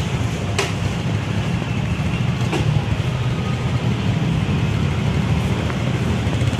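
A steady low motor rumble, with two faint clicks about half a second and two and a half seconds in.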